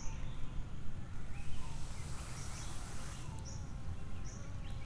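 Small birds chirping in short high calls, repeated every second or so, over a steady low rumble of outdoor background noise. A brief rustling hiss comes about two seconds in.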